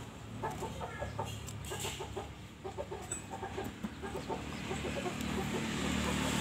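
Chickens clucking: a run of short, quick clucks, several a second, that fades out near the end, over a steady low hum.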